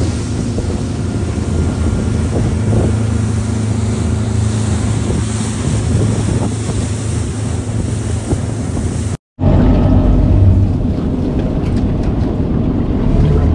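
Boat motor running steadily under way, with wind buffeting the microphone and water noise. The sound cuts out for a moment about nine seconds in and resumes.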